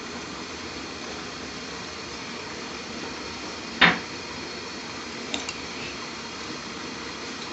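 Metal cookware clanking once, sharply, about four seconds in, with a couple of faint clinks a second and a half later, over a steady kitchen hiss while a pan of oil heats.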